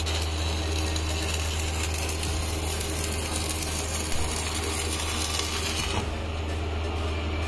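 Electric arc welding on a steel frame: a steady crackling hiss that stops about six seconds in, over a steady low hum.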